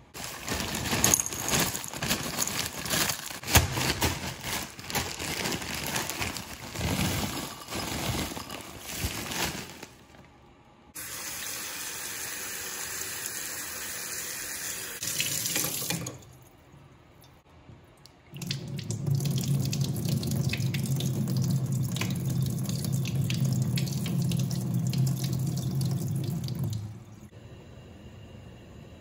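Tap water running into a bowl of frozen peas being rinsed, with uneven splashing and knocks for the first ten seconds, then a steadier stream. Later a steady low hum with a noisy wash comes in and stops suddenly near the end.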